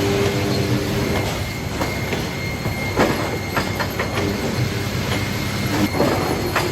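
Sawmill lumber-handling machinery running: a steady mechanical rumble and hum, with irregular knocks and clatter of boards on the conveyors and a thin, steady high whine.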